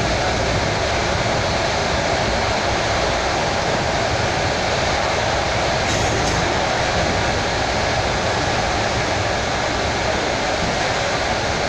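Suburban electric train (elektrichka) running along the track at speed, heard from inside the carriage as a steady, even running noise.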